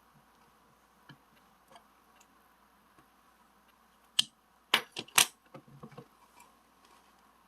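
A few faint clicks, then a quick cluster of sharp, loud clicks and taps about four to five seconds in, trailing off into lighter taps.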